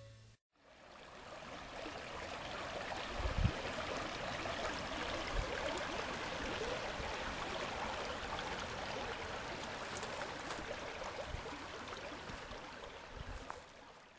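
Shallow creek water flowing over sand and fallen logs: a steady rushing wash that fades in and fades out near the end, with a couple of brief low thumps on the microphone.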